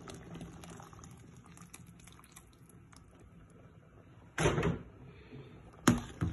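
Spoon in a steel pot of boiling harira soup: faint bubbling, then a short clatter about four seconds in and two sharp knocks of the spoon against the pot near the end.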